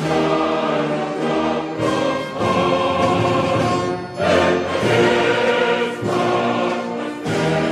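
A Soviet choral song: a choir singing in full, held chords with orchestral accompaniment.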